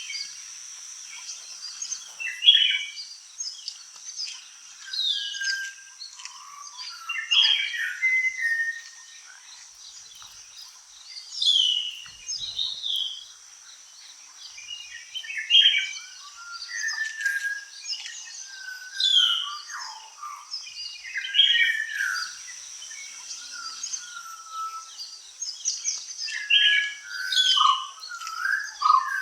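Several forest birds singing and calling in short, varied phrases every second or two, over a continuous high-pitched insect trill.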